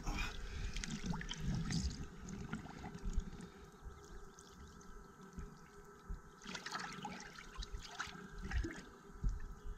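Lake water splashing and trickling as a large pike, held by hand at the water's surface, is let go. There is a quieter spell in the middle.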